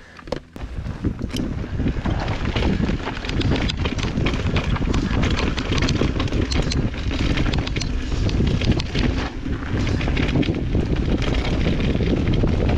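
Mountain bike riding down a dry dirt trail, heard from a camera on the bike or rider: wind buffeting the microphone over the tyres on loose ground and a constant clatter of small knocks and rattles from the bike. It starts about half a second in.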